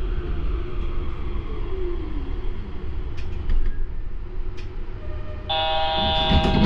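Rumble of a Yurikamome rubber-tyred automated train heard from inside, with a brief falling whine about two seconds in. About five and a half seconds in, a steady electronic buzzer tone starts.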